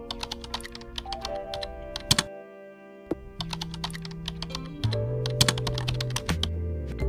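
Keyboard-typing sound effect: quick runs of key clicks, pausing briefly about two seconds in, over background music with sustained bass notes.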